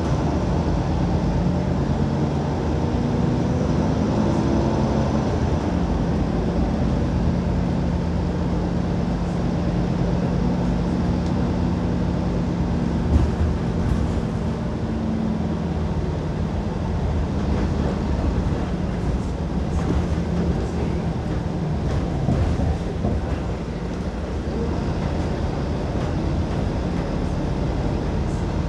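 Steady drone of a Volvo city bus on the move, heard from inside the cabin: engine hum and road rumble, with the engine note rising and falling as the bus changes speed, and a single knock about halfway through.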